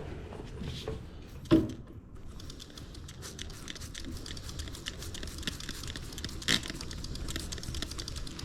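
Rapid scratchy scrubbing on a bike tyre's whitewall sidewall while it is being cleaned, with a single sharp knock about a second and a half in and another later.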